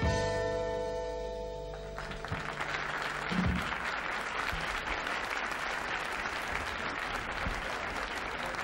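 The song ends on a held final chord that stops about two seconds in, and the audience then applauds steadily.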